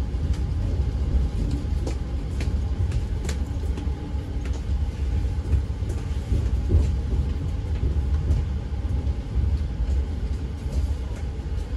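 Running noise inside a moving Argo Dwipangga New Generation passenger train coach: a steady low rumble with scattered faint clicks and rattles.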